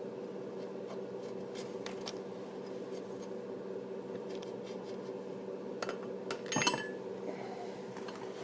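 Hand tools working the ball joint nut on a Subaru's front suspension: a few faint metallic ticks, then a short cluster of sharp metal clinks about six to seven seconds in. A steady low hum runs underneath.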